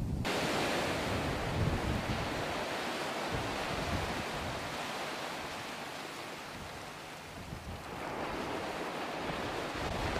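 Wind buffeting the microphone over choppy water: a rushing noise with a gusty low rumble. It eases off through the middle and picks up again about eight seconds in.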